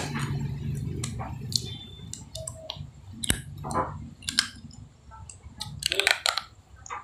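Close-up eating noises: scattered clicks, smacks and crunches as a man bites and chews, with brief vocal sounds between them.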